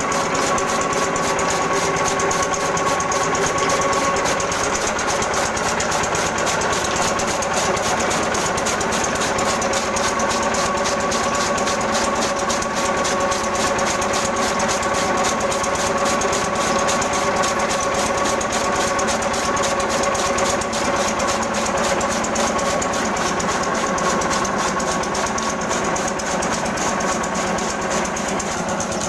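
Stationary diesel engine running steadily, belt-driving a flywheel chaff cutter that chops green fodder: a fast, even chugging with a steady hum over it.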